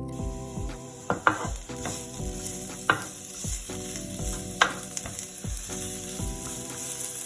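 Food sizzling as it fries in a pan, with a few sharp clicks of a utensil against the pan as it is stirred, over background music with a steady beat.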